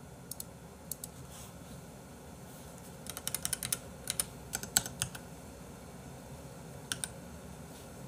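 Typing on a computer keyboard: short, irregular runs of keystrokes, busiest from about three to five seconds in, with a few lone taps before and after.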